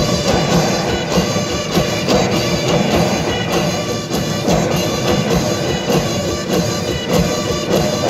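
Bihu folk music: many dhol drums beating a dense, steady rhythm, with a melody line held above it.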